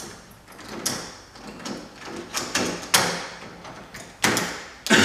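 Door lock hardware being handled and fitted onto a door: a series of sharp metallic clicks and knocks, the loudest about three seconds in and two more near the end.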